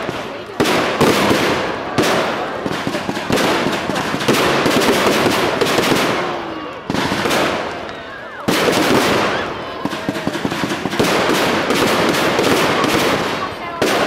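Aerial fireworks bursting overhead: rapid volleys of bangs and crackling, easing off briefly about seven seconds in before the bangs pick up again.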